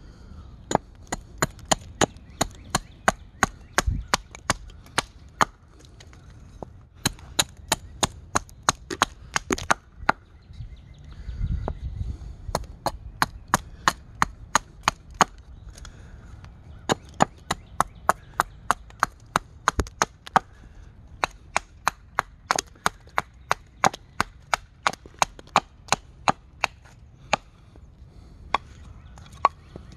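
Carving axe chopping into a cherry wood spoon blank: runs of quick, sharp chops, about two or three a second, with short pauses between the runs.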